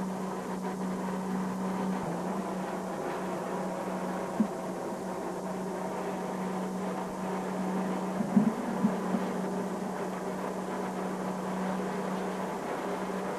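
Steady hum and rushing noise inside a moving aerial tramway car riding its cable, with a few brief clicks about four seconds in and again around eight to nine seconds in.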